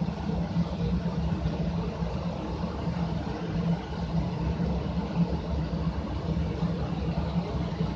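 MTU 16V2000 M93 sixteen-cylinder V marine diesel engine running steadily, on a test run after its coolant pump and exhaust water-jacket leak repair.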